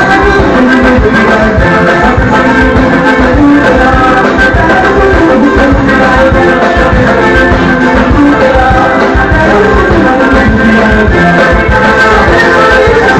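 Loud band music in a Latin American popular style, with a steady, regular beat and no words picked out.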